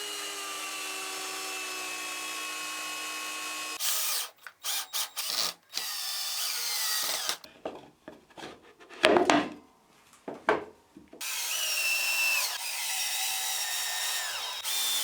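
Electric drill running in spells on wood: a steady whine, then a run of short trigger bursts, then a longer run whose pitch drops in steps as the bit or screw takes load.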